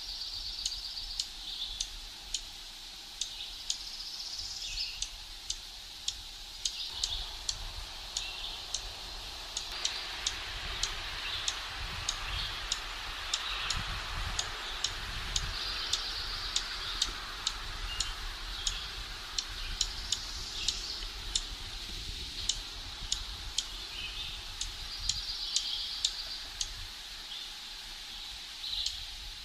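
Dark-eyed junco giving its sharp, high chip call over and over, about one or two a second.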